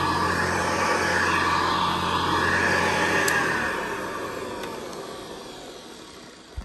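Hoover Convertible Model 704 upright vacuum cleaner running steadily, then switched off a little under four seconds in, its motor whirring down and fading out.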